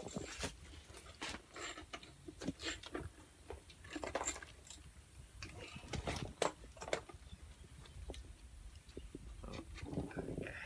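Scattered metallic clinks, taps and knocks of hand tools and parts being handled while a motorcycle is taken apart.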